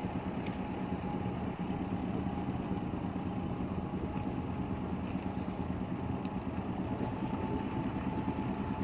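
Car ferry's engine running steadily with a fast low throb as the ferry approaches.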